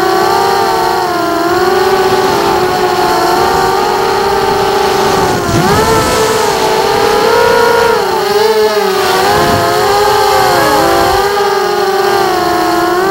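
FPV drone's electric motors and propellers whining, the pitch rising and falling as the throttle changes, with a brief dip and surge about halfway through.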